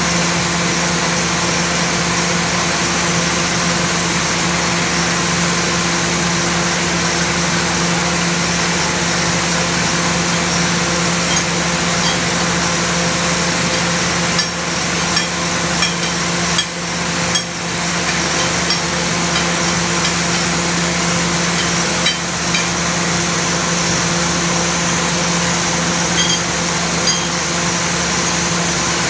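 Borewell drilling rig and its air compressor running: a loud, steady machine drone with a constant low hum, broken by a few short knocks about halfway through.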